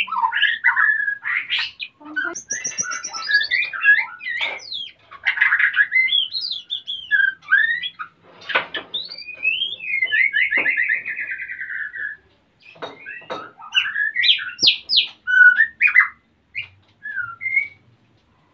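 Male white-rumped shama in breeding condition singing a varied song of rich whistles, quick glides, trills and short harsh notes, with a long rapid falling trill about two-thirds of the way through; the song thins to a few short notes near the end.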